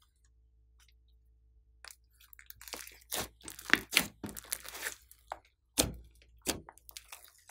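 Hands kneading, folding and pressing a thick mass of slime. About two seconds in, a run of sticky clicks and crackles starts. It is thickest in the middle, with a few louder pops near the end.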